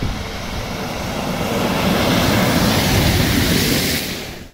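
A car passing on a rain-flooded road, its tyres hissing through standing water, growing louder as it comes closer. The sound fades out near the end.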